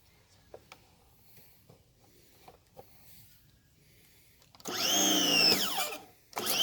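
Electric pressure washer motor starting up about two-thirds of the way in with a loud whine whose pitch rises briefly, then slides down over about a second and a half before it cuts out. A few faint clicks before it.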